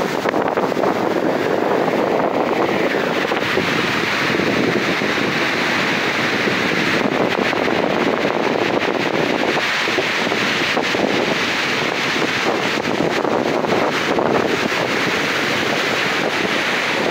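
Rough ocean surf breaking and foaming up a cobble beach, a steady wash of noise, with wind buffeting the microphone.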